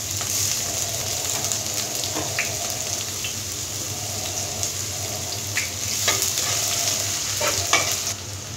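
Sliced onions frying in hot oil in a frying pan, a steady sizzle, with a few scrapes of a metal spatula stirring them in the second half.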